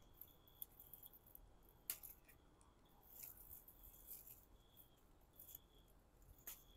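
Faint, sparse snips of garden scissors cutting bitter gourds from the vine, a few short clicks with near silence between them.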